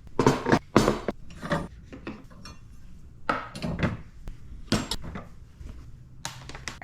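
Dishes and cutlery clinking and knocking against each other as they are handled and taken out of a countertop dishwasher: a handful of irregular clatters.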